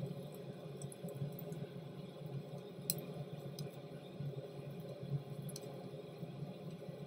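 Hands patting and pressing raw minced-meat kebab mixture into patties, a soft, uneven wet squishing over a steady low hum. Two sharp clicks, about three seconds in and again about five and a half seconds in.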